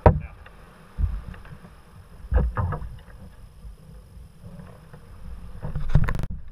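Sea kayak paddling: the paddle blades splash into the water a few times and water laps at the hull, over a steady low rumble. A sharp knock comes right at the start.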